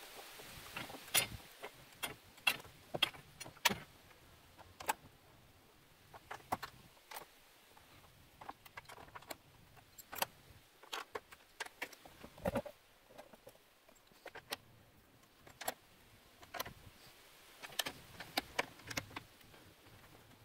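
Socket ratchet wrench clicking in short, irregular bursts while hex lag screws with washers are driven through a steel plate, mixed with small metal clinks of the screws and washers being handled.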